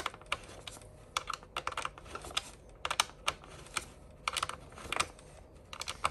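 Small screwdriver turning a handle screw into the plastic body of a Sebo BP60 cordless vacuum: irregular light clicks and ticks in small clusters of two to four.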